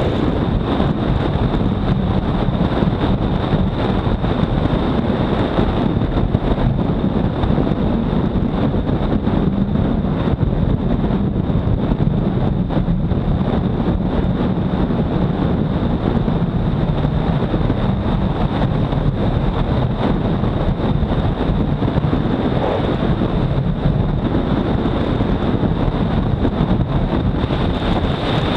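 Wind rushing hard over the camera microphone on a motorcycle at high speed, over the steady drone of the Honda CBR250R's single-cylinder engine held at cruising revs. A thin, steady high whine sits above it.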